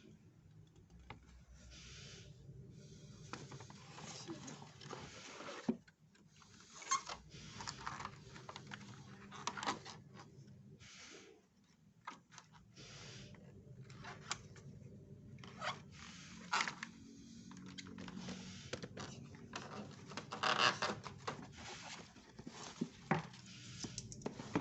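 Cardboard and plastic packaging being handled and torn open: irregular rustling, tearing and scraping with scattered sharp clicks and knocks, over a steady low hum.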